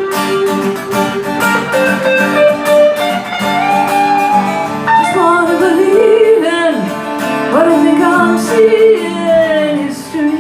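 Live country-style song: acoustic guitar playing, with a melody line bending up and down in pitch over it.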